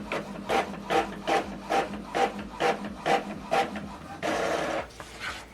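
Epson WorkForce WF-2910DWF inkjet printer printing a test page: the print head shuttles back and forth in quick regular strokes, about two to three a second, with a longer steady whir about four seconds in.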